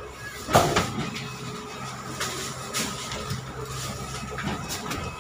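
Thuds and knocks as workers carry garlic sacks onto a steel shipping container's corrugated floor: one heavy thud about half a second in, then lighter knocks, over a steady low engine-like hum.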